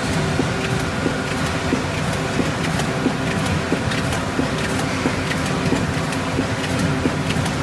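Ladder-Flex wire-belt spreader conveyor running in a food-processing plant: a steady mechanical hum with several held tones and light clicks about twice a second.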